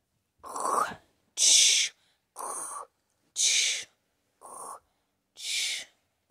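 A person imitating snoring with the voice: a rough snore on each breath in, then a hissing breath out, three times at about two-second intervals.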